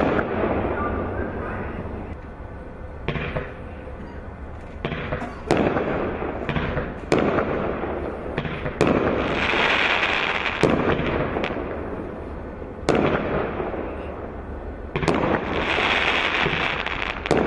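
Kimbolton 19-shot firework cakes firing: a dozen or so sharp reports at irregular intervals as shots launch and burst, with two spells of dense crackle lasting a couple of seconds each, one a third of the way in and one near the end.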